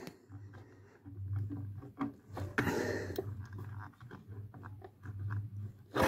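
A plastic compressor start relay being wiggled onto the metal terminal prongs of a freezer compressor by hand. Scattered small clicks and scraping, with a low intermittent rumble.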